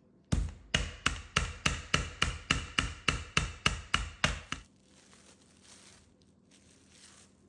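Rolling pin pounding a chicken breast between plastic wrap, a quick steady run of about fifteen strikes, about four a second, then faint rustling for the last few seconds.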